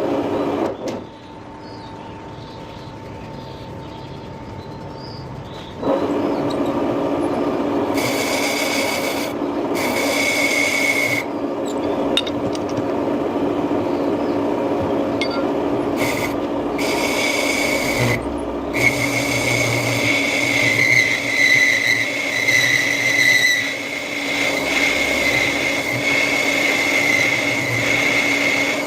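A metal lathe is turning a cast iron part, and the cutting tool scrapes across the iron with a rasping noise and a steady high whine. The whine breaks off and comes back several times. The cut is lighter at first and grows louder and fuller about six seconds in.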